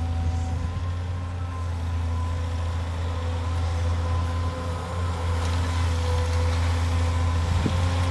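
Caterpillar 320 hydraulic excavator's diesel engine running steadily under load, with a steady whine over it, as the loaded bucket is lifted and swung. A single short knock comes near the end.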